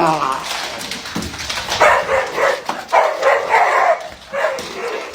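Dog barking, a string of short barks in quick succession from about two seconds in.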